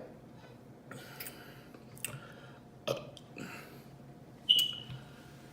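A person's mouth sounds while eating pizza, a burping-challenge mukbang: a few short, quiet smacks and clicks, and small burps.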